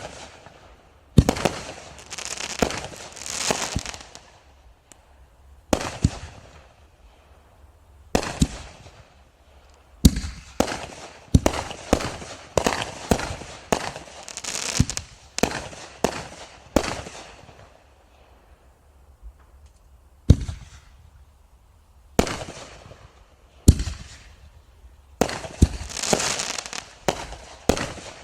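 Consumer aerial firework shells from a reloadable canister-and-ball shell assortment firing in quick succession. Sharp bangs come in clusters, several followed by crackling, fizzing tails, with a lull of a couple of seconds past the middle.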